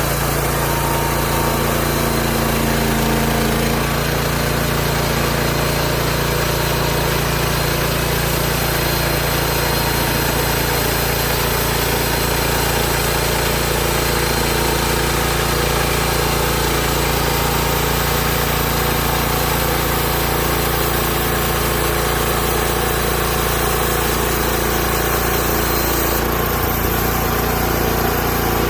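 Engine of a Hud-son Homesteader 30 band sawmill running steadily, its tone shifting slightly near the end.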